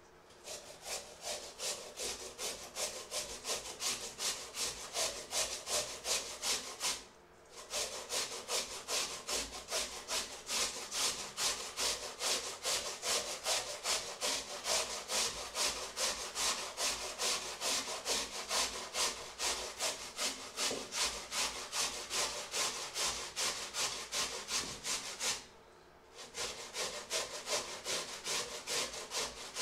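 Potatoes grated by hand on a flat metal grater over a steel bowl: rhythmic rasping strokes, about three a second, stopping briefly twice.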